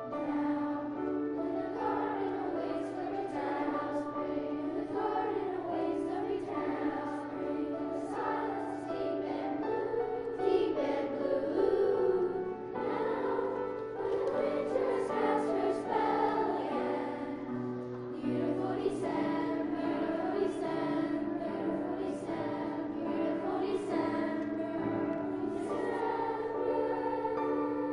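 A choir singing a song.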